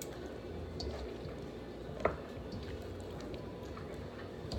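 Marinated raw chicken thighs being handled and placed into a bowl: soft wet squishing and dripping, with one sharp tap about two seconds in.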